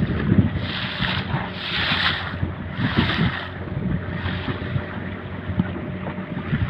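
Small fishing boat's engine running steadily at trolling speed, with water rushing and splashing against the hull about once a second and wind buffeting the microphone.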